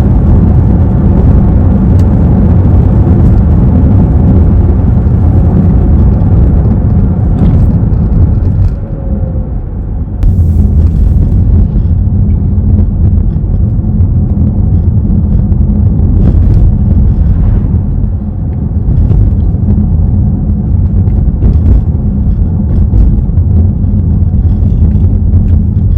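Steady low rumble of a 2023 VW ID.3 on the move, road and tyre noise, with a handful of short, faint clicks scattered through and a brief drop in level about nine seconds in.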